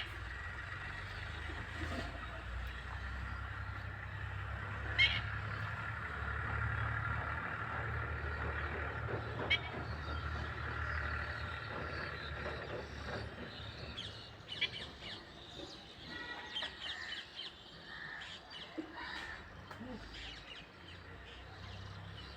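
Short, sharp bird calls over a steady low rumble of a passing vehicle. The rumble fades out a little past halfway, and the calls then come more often, in quick clusters.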